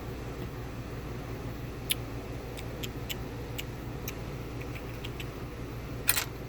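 Scattered small metal clicks and taps from handling a lock cylinder and its plug follower, with a louder cluster of clicks near the end, over a steady low hum.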